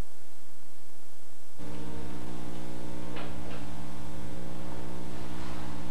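Steady electrical hum with many evenly spaced overtones, switching on abruptly about a second and a half in, with a few faint soft knocks over it.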